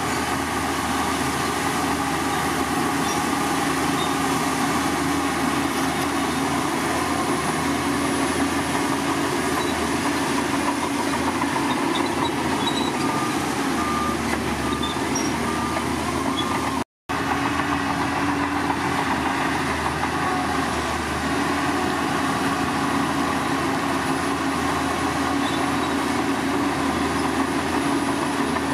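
Diesel engine of heavy earthmoving machinery running steadily under work, a continuous drone. There is a brief, sudden gap about two-thirds of the way through.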